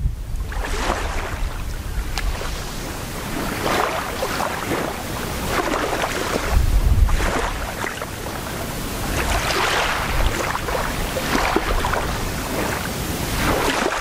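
Small, gentle waves lapping onto a sandy beach, each wash swelling into a soft hiss every few seconds. A gust of wind rumbles on the microphone about halfway through.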